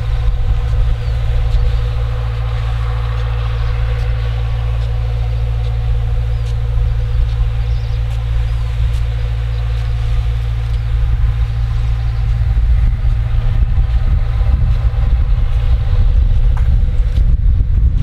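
John Deere four-cylinder turbodiesel, heard from about a quarter mile away, running steadily under load as it drives a 1200 gpm center-pivot irrigation pump at 40–45 psi. It makes a constant low drone with a steady whine above it.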